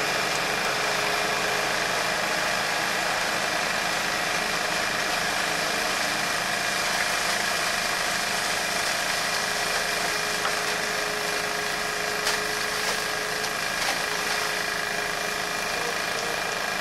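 Excavator engine running steadily while the arm lifts a loaded bucket, with a thin steady whine over it. Two short knocks come about three-quarters of the way through.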